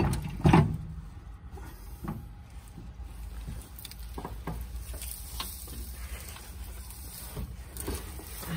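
Handling noise as hands move about the underside of a forage harvester: two sharp knocks about half a second apart at the start, then scattered faint clicks, taps and rustles over a low steady hum.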